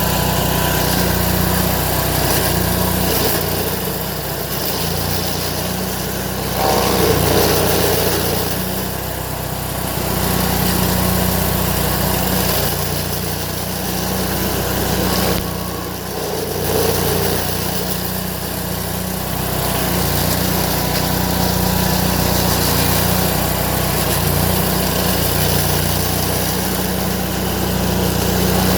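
Stump grinder's engine running, its level and pitch dipping and recovering now and then as the cutter wheel works into a stump.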